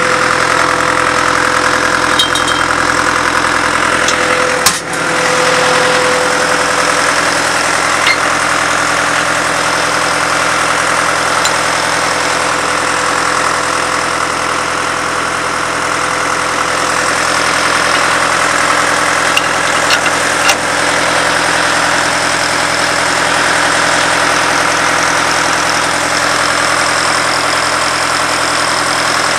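Engine of a truck-mounted Cabletool 22W drill rig running steadily. A steady tone in the sound fades away about six seconds in, just after a single sharp knock.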